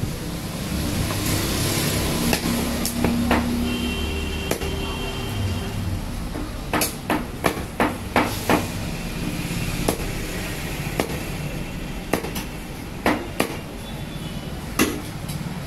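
Knife chopping a tilapia into pieces on a wooden chopping block: a string of sharp knocks, with a quick run of about six chops near the middle, over a steady low background rumble.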